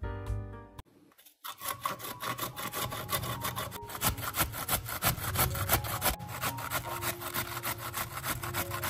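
Cabbage being grated on a stainless steel box grater over a wooden cutting board: quick, even rasping strokes that start about a second and a half in.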